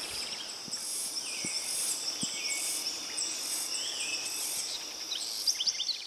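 Amazon rainforest ambience: a steady high insect drone with pulsing insect calls above it, and several bird calls, ending in a quick run of notes near the end.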